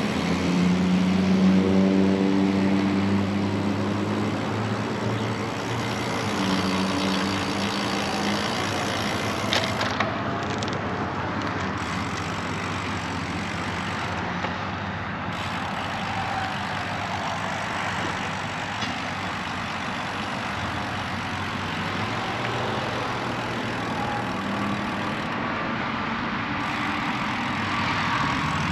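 Road traffic: motor vehicles running and passing, with a heavy engine's hum loudest in the first few seconds. It sits over a steady rushing noise from riding a bicycle.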